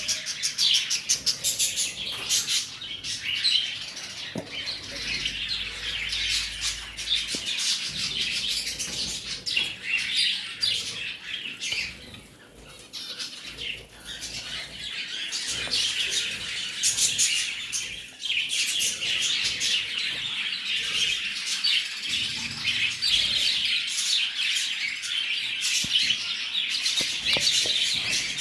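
Several lovebirds chirping in rapid, high-pitched calls, briefly quieter a little before halfway.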